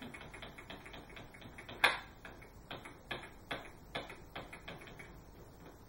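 Light clicks of computer keyboard keys, two or three a second, with one sharper click about two seconds in; they thin out near the end.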